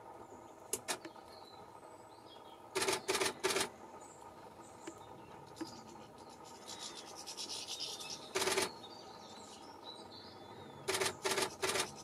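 Female great spotted woodpecker pecking at a tree stump: sharp wooden taps in short clusters of two to four, with a fainter, quicker run of taps in the middle.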